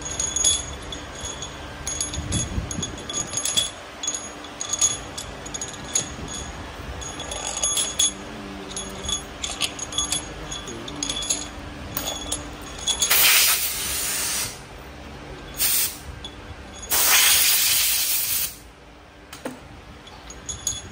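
Metal parts and hand tools clinking and tapping against a wheel loader's diesel engine valve gear while rocker-arm parts are handled. About two-thirds of the way through come two loud hissing bursts, each about a second and a half long, with a short burst between them.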